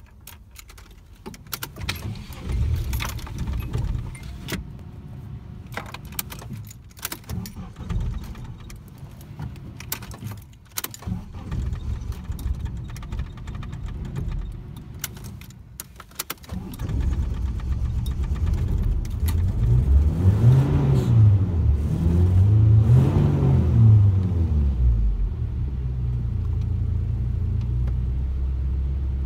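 Nissan 240SX's single-cam four-cylinder engine being cranked over with an uneven, stuttering sound for about sixteen seconds: a hard start. It then catches and runs, is revved up and down twice, and settles into a steady idle.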